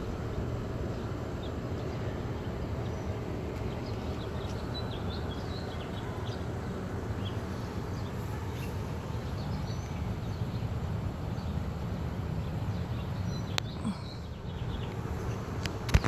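Outdoor ambience: a steady low rumble with scattered faint bird chirps, and a couple of sharp clicks near the end.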